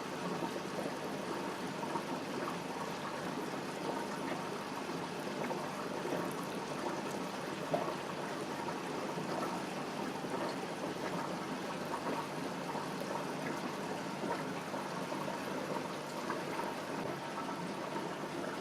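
Aquarium water trickling steadily, with a few small clicks.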